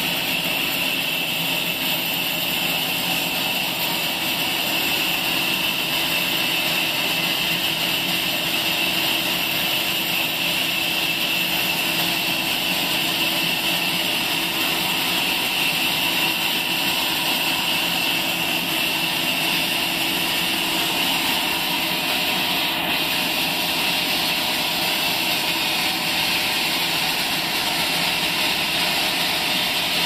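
Horizontal band sawmill running steadily, its belt-driven blade sawing lengthwise through a log.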